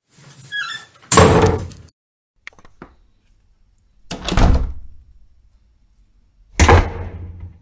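Door sound effects: a door opening with a short squeak, then slamming shut hard about a second in. Two small latch clicks follow, then two more door slams.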